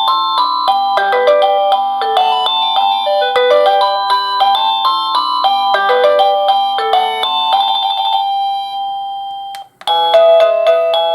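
Avantek D-3B wireless doorbell chime playing an electronic ring tune, a quick melody of bright notes. The tune ends on a held note that fades out near the end. After a brief pause a different tune starts.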